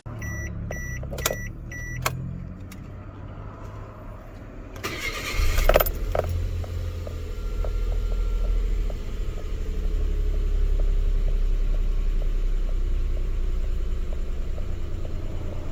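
A few short electronic beeps, then the Suzuki K6A 660 cc turbo three-cylinder engine of a JB23 Jimny cranked by the starter and catching about five seconds in, settling into a steady idle with light regular ticking.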